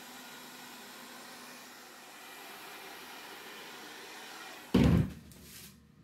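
Hair dryer blowing steadily, then a single loud thump about four and a half seconds in, where the blowing stops.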